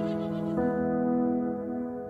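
Slow instrumental background music: held notes with a note change about half a second in.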